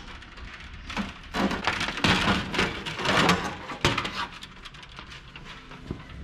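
Lower engine cowling of a light aircraft being pulled free and lowered off the nose: a crackling, scraping clatter of the panel rubbing against the airframe for about three seconds, then quieter handling.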